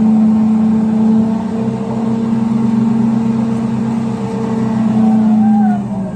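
Heavy machinery engine running steadily with an even droning note. Near the end the note drops lower and the sound gets quieter, as if the engine is easing off.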